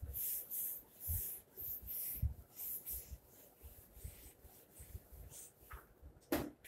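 Whiteboard eraser rubbing across the board in quick back-and-forth strokes, about two a second, growing fainter after about three seconds. A single sharp knock near the end.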